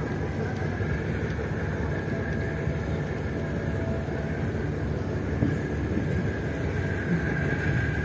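Strong sea wind roaring steadily over the microphone, with the wash of choppy sea waves underneath.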